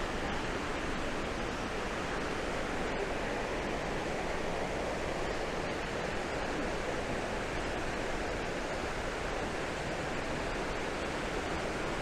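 A waterfall's water rushing in a steady, unbroken roar of white noise.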